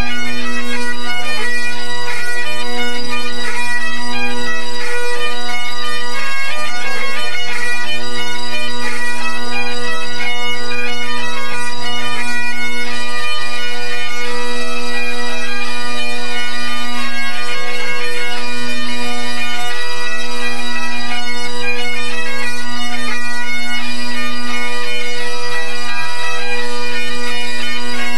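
A pipe band's Great Highland bagpipes playing together loudly during the band's tune-up: steady drones sound without a break beneath the chanters' quickly changing melody.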